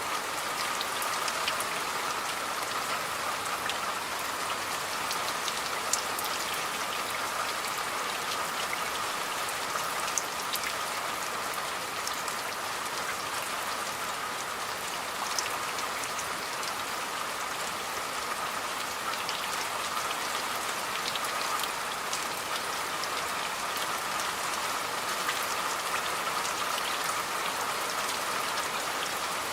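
Steady rain falling, with individual drops striking sharply here and there.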